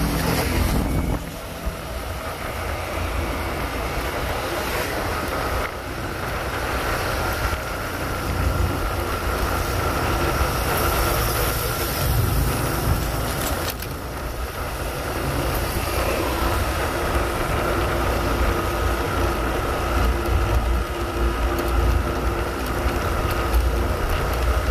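Steady engine and road noise of a vehicle travelling along a narrow road, with a low wind rumble on the microphone. A motorbike passes alongside about twelve seconds in.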